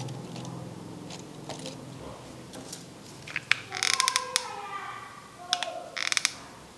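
Two short bursts of rapid, ratchet-like clicking from a small hand-held craft tool being worked, about three and a half and five and a half seconds in, amid light handling of paper and plastic.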